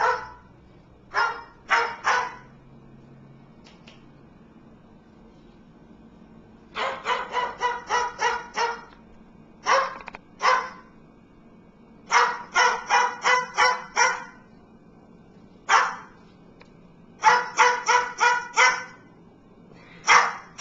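Cockatoo mimicking a dog's bark: short, high barks, some single and some in quick runs of six to eight, with pauses between.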